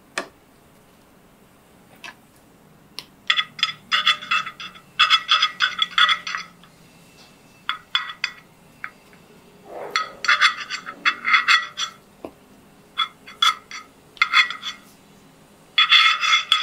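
Serrated bread knife sawing through a slice of whole wheat bread around the rim of a wooden bowl: about six bursts of quick scratchy strokes with short pauses between. A single tap comes just at the start.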